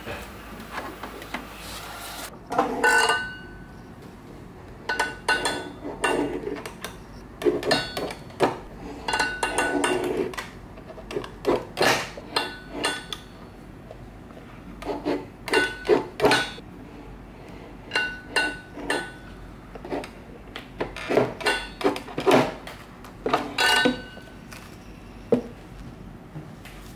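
Guillotine paper cutter chopping through printed sheets: many sharp cuts in irregular clusters, each with a brief metallic ring from the blade. For the first two seconds a printer is running, cut off suddenly.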